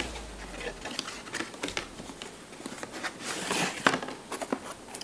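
Cardboard box and packaging being handled and opened by hand: scattered light clicks and taps with rustling, and a longer rustle a little past the middle.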